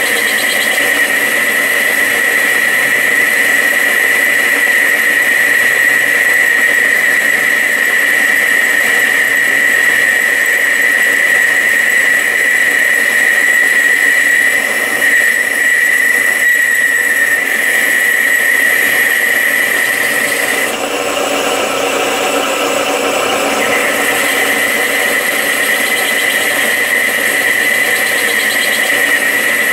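Metal lathe running while boring out the bearing bore of a tractor steering arm, with a steady high-pitched squeal over the machine's running noise. The squeal breaks off for about three seconds about two-thirds of the way through and then returns.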